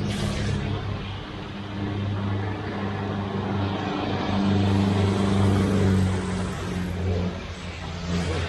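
A motor vehicle passes close by, its engine a low steady hum with tyre noise that grows louder to a peak about halfway through, then eases off.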